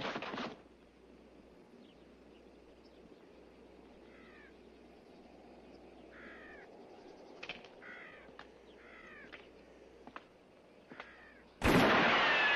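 Film soundtrack: bird calls repeat faintly several times over a quiet hush. About a second before the end comes a single loud gunshot, followed by a ricochet whine that falls in pitch as the bullet kicks up dust.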